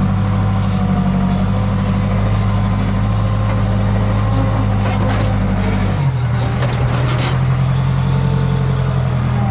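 Case 580K backhoe loader's diesel engine running steadily under work while the loader scoops dirt; the engine note shifts about six seconds in.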